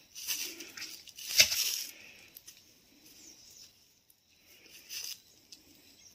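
Dry rustling and scraping in bursts as a Russell's viper is pushed with snake tongs through dry leaf litter into a black bag. A sharp click comes about a second and a half in. The rustling is loudest in the first two seconds, with fainter bursts near the end.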